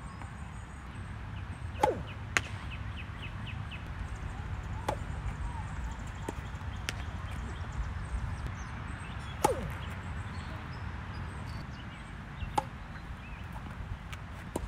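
Tennis ball struck by rackets and bouncing during a rally: about half a dozen sharp pops, unevenly spaced, over a steady low rumble.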